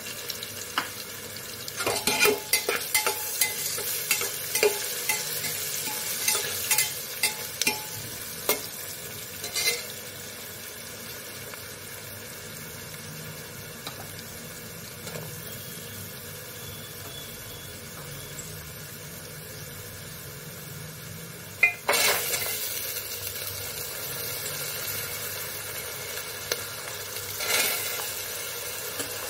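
Onions and spices frying in oil in a metal pot, sizzling steadily, with a steel slotted spoon scraping and clinking against the pot as it stirs during the first ten seconds or so. About three-quarters of the way through the sizzle suddenly gets much louder as the wet, soaked black-eyed peas go into the hot oil.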